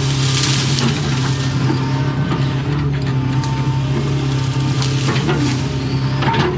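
Doosan excavator's diesel engine running steadily under work, with scattered cracks and snaps of tree branches being broken and pushed through.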